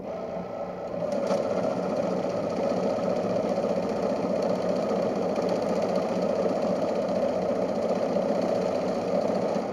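Ribao BCS-150 banknote counting machine running, feeding a stack of banknotes through its rollers in a fast, steady mechanical rattle that gets louder about a second in.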